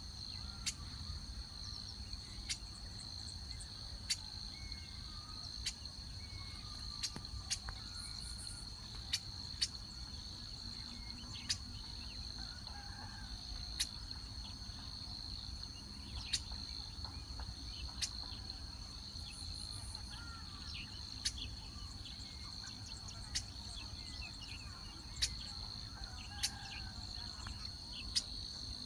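Insects trilling, a steady unbroken high-pitched drone, with sharp short ticks every second or two and a few faint bird chirps over a low rumble.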